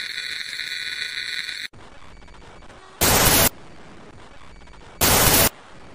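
A steady high-pitched electronic tone that cuts off about a second and a half in, then a faint hiss broken twice by loud half-second bursts of TV-style static, about two seconds apart.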